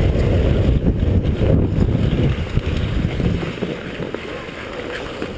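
Wind buffeting the microphone of a head-mounted GoPro Hero HD as the skater glides, a heavy low rumble that eases off about three and a half seconds in.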